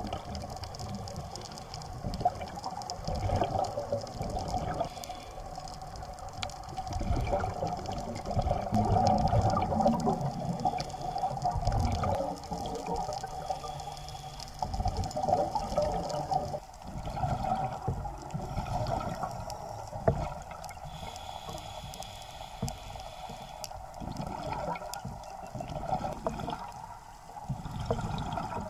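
Underwater sound of scuba divers' exhaled regulator bubbles gurgling in swells a few seconds apart, muffled through an action camera's waterproof housing.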